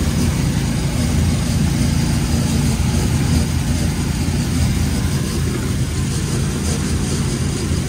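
Engine of a small enclosed off-road vehicle running steadily as it drives across snow, heard from inside the cab as a constant low drone with a wash of ride noise over it.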